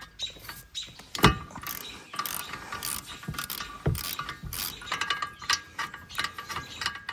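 Socket ratchet clicking in quick runs while a spark plug is worked out of an ATV engine, with a sharp knock about a second in and another near four seconds.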